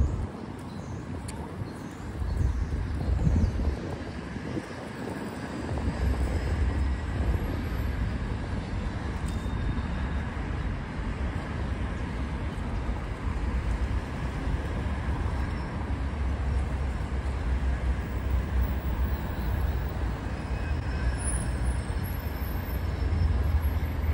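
Steady city road traffic: a background of car and bus engines and tyres with a low rumble, rising and falling a little as vehicles pass.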